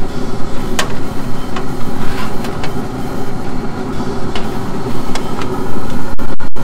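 Steady mechanical whirring noise, with a few light, sharp clicks and scrapes of a spatula against a smoker's wire rack as a pizza is slid off it.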